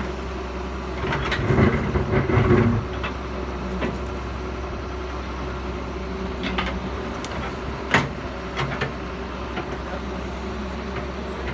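Excavator diesel engine running steadily, growing louder for a second or so about a second and a half in, with a few sharp knocks, the loudest about eight seconds in.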